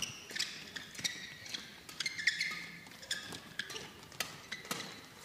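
A fast badminton doubles rally: rackets strike the shuttlecock with sharp pops at irregular intervals, about every half second, while players' shoes squeak on the court mat.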